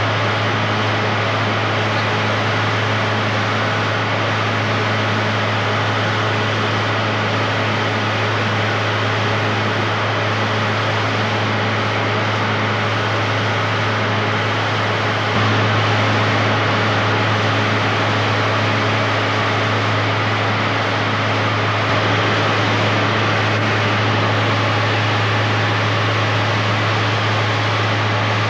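Cabin noise of a high-wing propeller airplane in flight: the engine and propeller drone steadily with a strong low hum, getting a little louder about halfway through.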